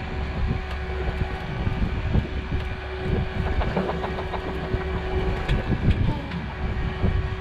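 Wind and sea noise on an open fishing boat offshore: a steady low rumble of wind on the microphone and water moving against the hull, with a faint steady hum running underneath.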